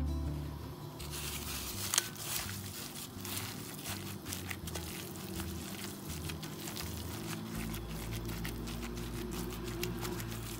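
Raw ground meat being kneaded by hand in a bowl: wet, irregular squelching mixed with the crinkle of a plastic glove, starting about a second in.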